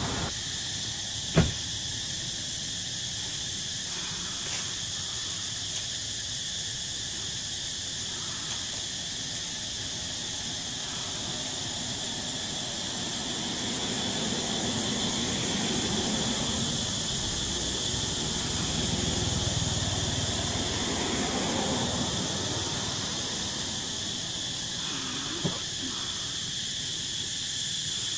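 Insects droning steadily in a high-pitched, unbroken chorus. A sharp knock cuts in about a second in, and a smaller one comes near the end.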